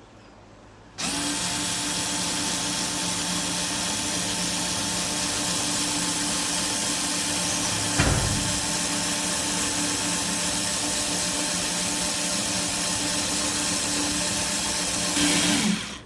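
Small 3.6V USB cordless electric screwdriver motor running at a steady speed for about fifteen seconds. There is a single knock about halfway, and the motor gets slightly louder just before it stops.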